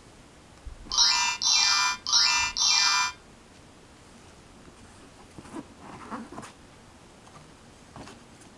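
Electronic sound effect from a children's play-a-sound book's speaker: four quick, pitch-bending chirps in a row, starting about a second in and lasting about two seconds. Faint rustling and clicks follow as a page is turned.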